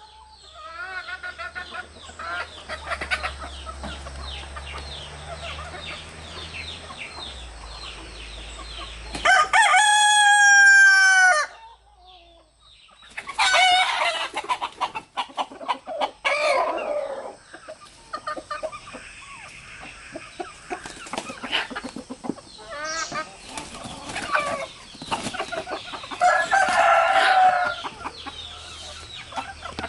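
Roosters crowing with hens clucking around them. One long, loud crow comes about a third of the way in. Shorter loud calls follow a few seconds later and again near the end, with steady clucking in between.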